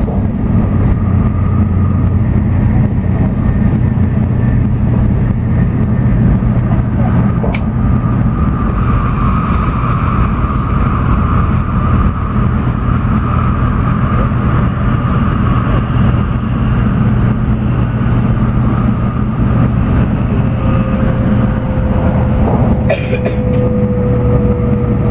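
Running noise inside the cabin of an N700-series Shinkansen at speed: a steady rumble and rush of wheels and air with an even hum. A couple of sharp clicks come through, and near the end a faint whine slowly falls in pitch.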